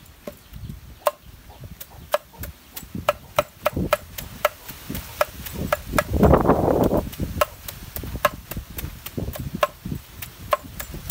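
Repeated sharp chopping strokes at a steady pace, about three a second, with a louder rustling burst about six seconds in.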